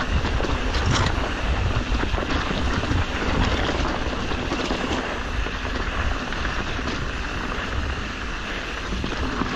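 Mountain bike riding over a rough dirt trail: wind rumbling on the microphone over steady tyre noise, with scattered clicks and rattles from the bike on rough ground.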